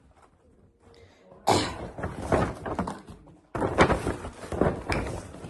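Clothes being handled, rustling with knocks and bumps, in two spells: one starting about a second and a half in and one about three and a half seconds in.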